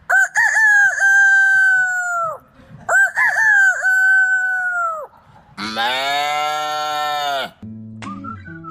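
A man imitating a rooster crowing: two drawn-out crows, each rising at the start and dropping off at the end, followed by one longer, much lower call. Music starts near the end.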